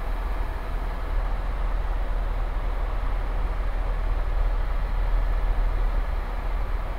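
Steady cabin noise of an Airbus EC130 T2 helicopter in cruise flight: its turbine engine and rotors heard from inside the cockpit as an even low rumble with a hiss over it.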